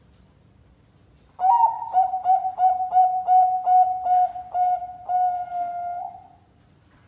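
Zebra dove of the Thai-bred 'perkutut Bangkok' song strain cooing: a quick run of about a dozen short notes, about three a second, ending in one longer held note.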